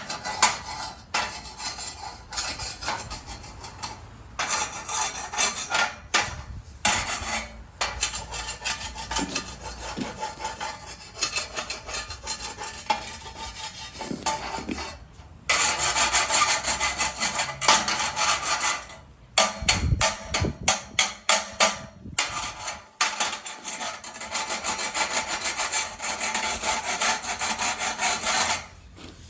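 Hand scraping and rubbing on a hard surface, in long runs of strokes broken by short pauses.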